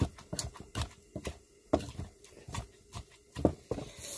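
Wooden pestle pounding roasted-tomato chutney in a mortar, dull thuds at about two strokes a second. A steady hiss comes in near the end.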